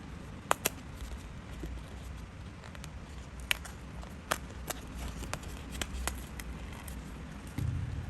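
Scattered sharp clicks and taps from hands working paper and craft tools, a close pair about half a second in and then single clicks every second or so, over a low steady hum; a soft low thump near the end.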